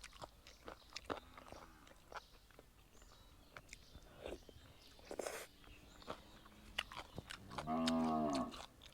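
Close-up chewing and crunching with scattered sharp clicks. Near the end a cow moos once, for about a second, rising then falling in pitch. The moo is the loudest sound.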